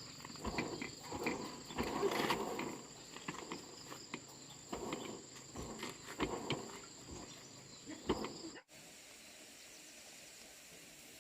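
Insects chirping in a steady high drone, with scattered knocks and rustling handling noises. About eight and a half seconds in, the sound cuts off abruptly to a quieter, even hiss.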